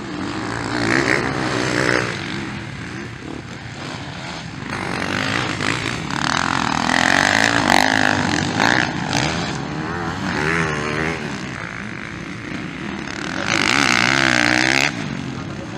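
Kawasaki motocross bikes racing past, engines revving up and falling off as the riders work the throttle through the turns. It is loudest as a bike passes close about halfway through and again near the end, where the engine note drops off sharply.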